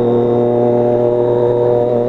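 Triumph Daytona 675R's 675 cc inline three-cylinder engine running through an unbaffled Competition Works full exhaust system, held at steady revs while the bike is ridden.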